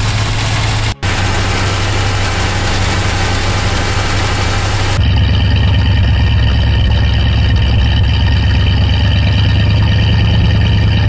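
1973 Ford F100's V8 engine idling steadily. About five seconds in it is heard from the tailpipe, where the low exhaust note is louder.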